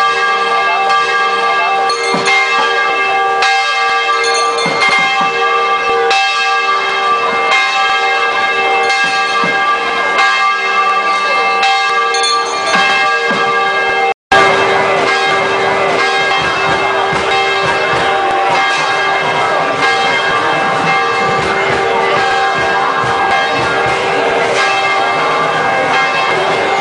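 Many Hindu temple bells ringing together without pause, a dense, steady clanging of overlapping tones, broken once by a brief dropout about halfway through.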